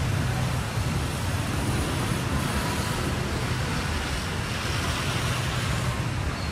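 Steady low rumble with an even hiss of outdoor background noise, with no distinct events.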